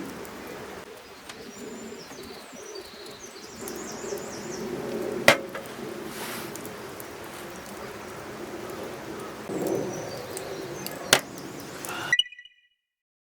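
Outdoor ambience with small birds chirping, broken by two sharp clicks or knocks. It cuts abruptly to silence about a second before the end.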